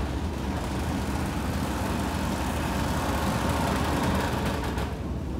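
Passenger ferry's engine running under way: a steady low drone with a noisy rush over it that thins out briefly near the end.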